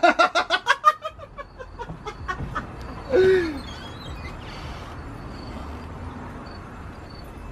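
A man laughing loudly in a quick run of 'ha-ha' pulses that slow and fade out over about a second and a half. About three seconds in comes a short vocal sound sliding down in pitch. Faint high bird chirps sound in the background throughout.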